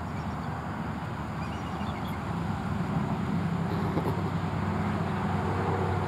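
Low, steady rumble of a motor vehicle's engine, slowly growing louder.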